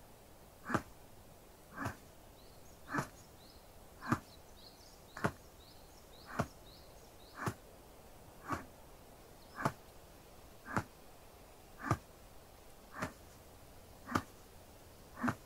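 Gentle shoulder-tapping massage: soft, even taps at a steady pace of about one a second. Faint high chirps sound in the background a few seconds in.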